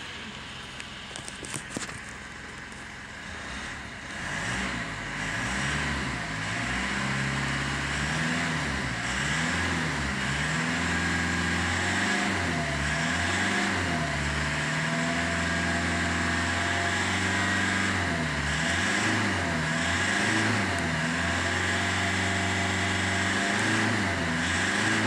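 Mitsubishi Triton's 2.4-litre four-cylinder turbo-diesel running in park, revved up and down over and over and held around 3,000 rpm. It gets louder from about four seconds in, and a few light clicks come before that.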